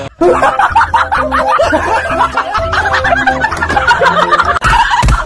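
Two men laughing loudly over music.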